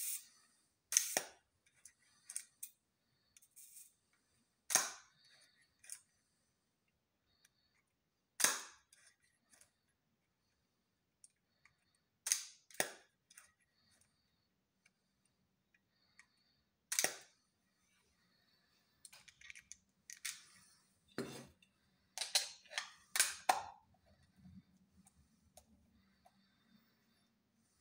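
Zorki-4 rangefinder camera's cloth focal-plane shutter being wound and released over and over: about a dozen sharp clicks at uneven intervals, some in pairs about half a second apart, coming closer together near the end, with quieter winding and dial sounds between them.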